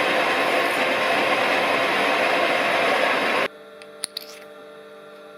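Smart & Brown Model A lathe running, turning a brass spigot, with a steady noisy sound that stops suddenly about three and a half seconds in. A low steady hum and a couple of light clicks are left after it.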